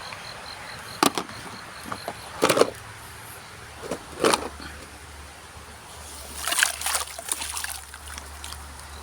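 Dirty plastic toy vehicles being handled: three sharp knocks spread over the first half, then a couple of seconds of scraping and rustling. An insect chirps steadily at the start and stops after about a second and a half.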